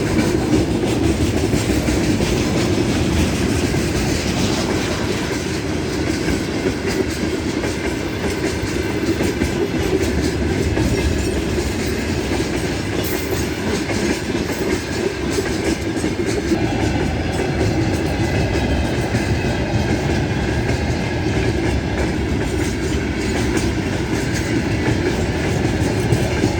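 Freight train rolling past, its wagons' wheels clattering steadily over the rail joints.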